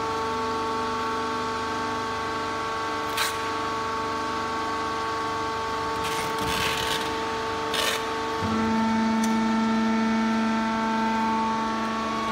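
Wood-chip horizontal bagging baler running with a steady hum of several tones. A sharp click comes about three seconds in, a short hiss around six to seven seconds ends in another click, and at about eight and a half seconds a lower tone comes in and the machine gets a little louder.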